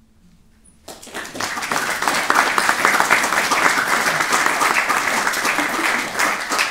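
Audience applauding, many people clapping together, starting suddenly about a second in after a brief quiet.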